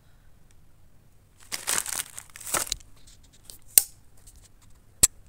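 Plastic bag of bait dough crinkling as it is handled, in two short bursts, followed by two sharp clicks.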